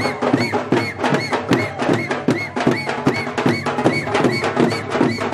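Teenmaar dance music: a fast, driving drum beat with a short high tone repeating about three times a second over it.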